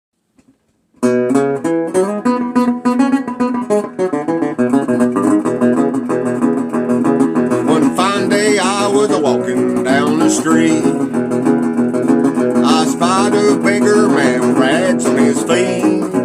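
Acoustic guitar strumming a country song intro, starting about a second in, with a wavering higher melody line joining from about halfway.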